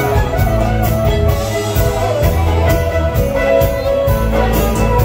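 Live band playing a country-rock song: fiddle over acoustic guitar, electric bass and a drum kit keeping a steady beat.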